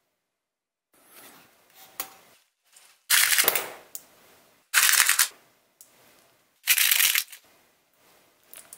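Small metal parts rattling and clinking in a metal parts-organizer drawer as gloved fingers rummage through them, in three short bursts, with a faint click about two seconds in.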